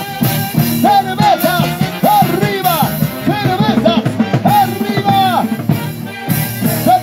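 Live Peruvian huayno orchestra playing: a repeated melodic phrase of short arching notes over bass and a steady drum beat.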